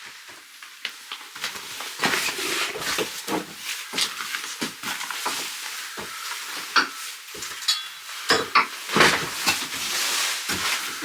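Dirty dishes being handled and carried, knocking and clattering against each other, with a short ringing clink near the middle.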